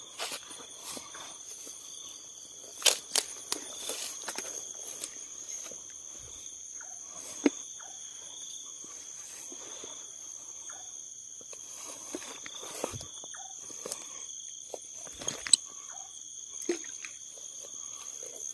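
A steady chorus of night insects such as crickets, holding two high, even tones. Over it, footsteps brush through grass, with a few sharp knocks, the loudest about three seconds in and again near fifteen seconds.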